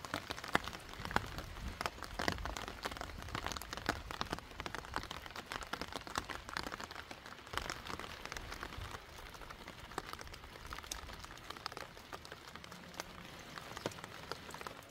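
Steady rain falling, heard as a dense scatter of separate drops ticking sharply close by.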